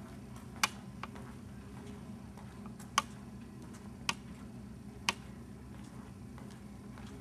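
Footsteps of a man in trainers on a hard floor: a few sharp, irregularly spaced clicks, four of them loud, over a steady low hum.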